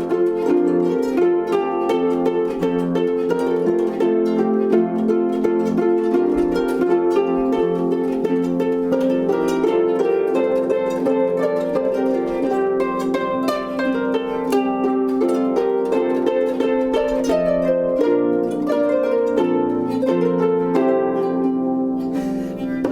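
Instrumental music played on plucked strings: a continuous stream of quick plucked notes over ringing lower tones.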